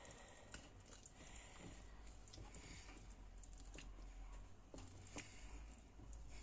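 Near silence: low room hum with a few faint, scattered clicks and taps.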